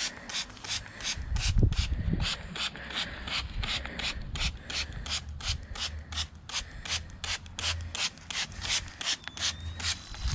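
Hand trigger spray bottle spritzing soapy water onto an inflated vinyl air mattress in quick repeated squirts, roughly three a second, to find a puncture by its bubbles. There is a low thump about a second and a half in.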